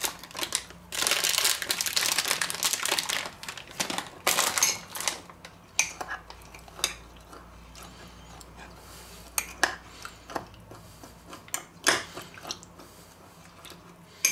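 A plastic raisin packet crinkling as it is squeezed and emptied for the first few seconds, then a teaspoon stirring raisins in a ceramic mug of rum, with scattered light clinks of the spoon against the mug.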